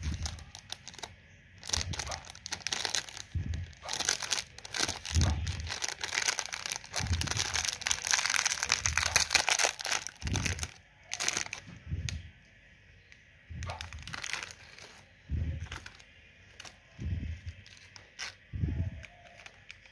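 Plastic sweet wrappers crinkling as the packets are picked up and handled, densest in the middle, with soft low thuds as packets are set down.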